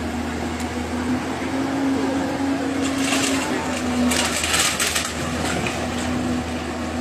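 Excavator tearing down a house: the diesel engine hums steadily, with two bursts of crunching, crashing debris about three seconds in and again between four and five seconds in.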